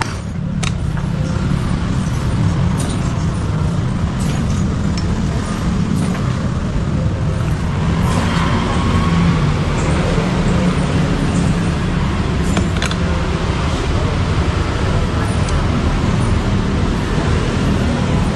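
Steady low rumble of a running motor vehicle engine, with a few sharp clicks.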